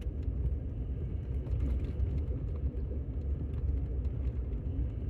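A car driving, with a steady low rumble of engine and tyre noise and a few faint ticks.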